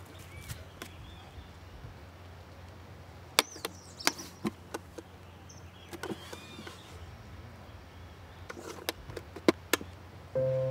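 A small wooden mailbox being opened, searched by hand and handled, giving a string of sharp wooden clicks and knocks in two clusters, the second near the end. Music comes in right at the close.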